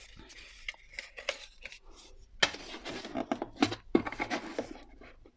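Paper and cardboard packaging being handled, with irregular rustles, crinkles and light knocks.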